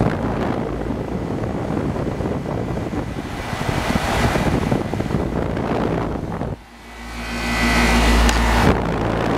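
1999 York Olympian 3.5-ton air conditioner condensing unit running, its condenser fan and Bristol reciprocating compressor giving a steady hum, with wind rumbling on the microphone. About six and a half seconds in the sound dips suddenly, then swells louder with a deeper hum.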